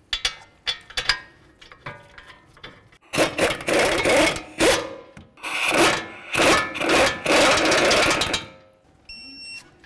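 A few light metal clicks as the caliper bracket bolts are started by hand, then a cordless ratchet runs in several bursts, driving the bolts down until they bottom out. Near the end an electronic torque wrench gives a steady beep, the signal that the bolt has reached its set torque of 91 foot-pounds.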